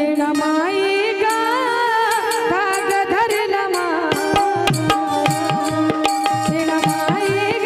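A woman singing into a microphone through a PA, her voice bending and ornamenting long held notes over steady held accompaniment notes. Hand-drum strokes with a low, bending pitch join in about halfway through.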